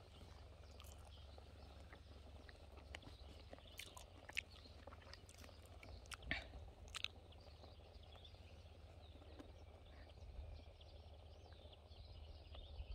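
Near silence: faint outdoor ambience with a steady low rumble and a few faint clicks.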